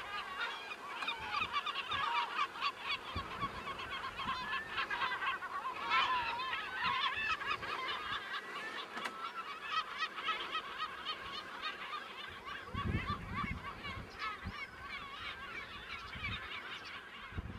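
A colony of gulls calling, many birds at once in a continuous chorus of overlapping cries.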